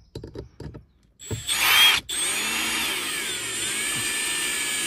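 Cordless brushless drill/driver driving a bolt into a rubber grommet in a car's boot side panel to clamp a dog-guard bracket. The motor whirs up about a second in, stops for a moment, then runs steadily, its pitch sagging briefly as the bolt pulls tight.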